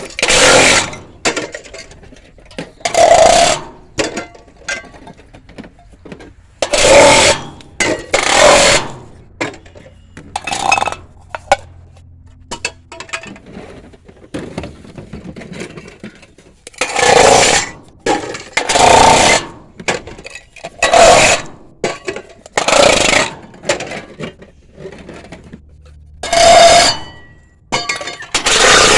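Cans being crushed one after another: about a dozen loud, short crunches, each under a second long, with a lull of several seconds midway.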